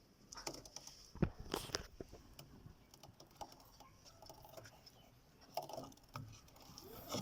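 Faint clicks and knocks of hands handling the washing machine's rubber drive belt and drum pulley as the belt is worked back into place, with one sharper knock about a second in.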